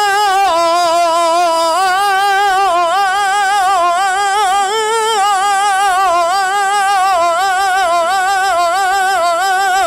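Male flamenco cantaor singing a fandango minero, holding one long melismatic vowel that wavers and turns in pitch without a break.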